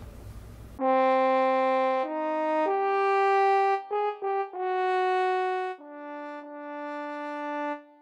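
Background music: a slow solo melody of long held notes, starting about a second in.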